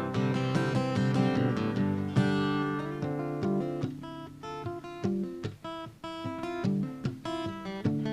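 Solo acoustic guitar playing an instrumental break, mixing strums with single plucked notes. It thins out and drops in level around the middle, then picks back up with sharp plucked notes.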